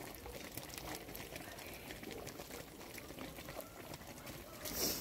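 Thick fig jam boiling in a large cauldron, bubbling with small pops. A short, louder hiss comes near the end.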